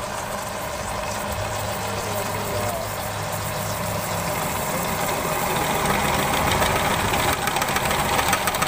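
Pillar drill with a 2 HP motor boring through an iron flat bar: the steady running of the motor with the grinding of the bit cutting steel, getting louder and rougher toward the end as the bit bites deeper.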